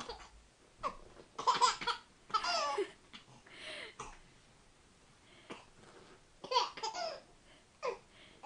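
Young baby laughing in bouts of squealing giggles: the strongest about one and a half to three seconds in and again around six and a half seconds, with quiet pauses between.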